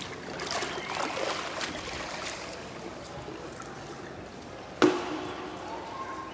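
Pool water splashing and dripping as a swimmer climbs out up a pool ladder. About five seconds in comes a single sharp knock, the loudest sound, with a brief ring after it.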